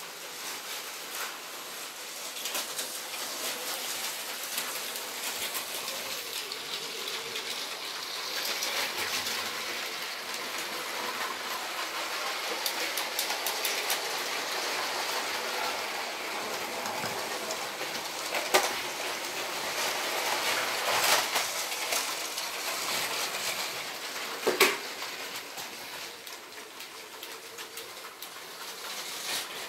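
Motorised LEGO trains running on plastic track: a steady whirring, rattling noise of motor and wheels, louder through the middle, with a few sharp clicks.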